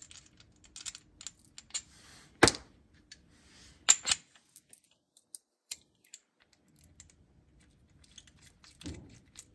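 Hand tools and parts being handled during axle bearing and seal work: scattered light clicks, a sharp knock about two and a half seconds in, two more about four seconds in, and a duller thump near the end.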